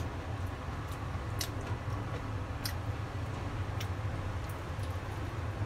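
Eating a salt-and-sake fried chicken wing: chewing and biting, with a few sharp clicks about a second apart, over a steady low hum.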